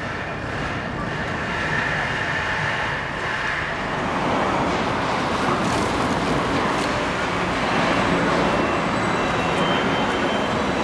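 Steady urban traffic noise, a constant rumble of passing vehicles that grows a little louder about four seconds in.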